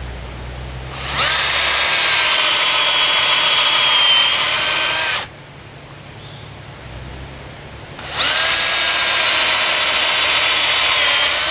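Cordless drill boring holes into a wooden log, in two runs: the first lasts about four seconds and the second starts about eight seconds in. The motor's whine rises as each run spins up.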